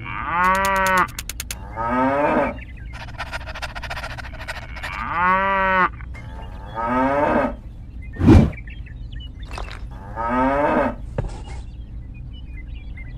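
Cattle mooing: about five long moos, each rising and then falling in pitch. A sharp, loud thump comes a little past the middle.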